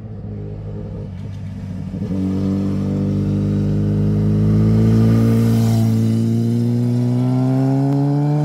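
Sport motorcycle engine accelerating hard out of a hairpin bend and passing close by. The engine note climbs steadily in one long pull with no break for a gear change, and is loudest as the bike goes past about halfway through.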